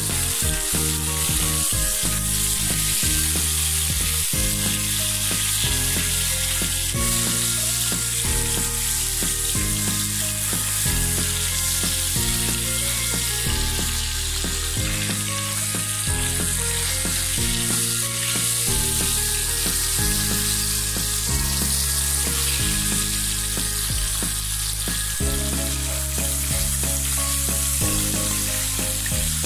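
Small sand goby fish shallow-frying in hot oil in a pan, with a steady sizzle throughout. Background music with a slow, stepping bass line plays under the sizzle.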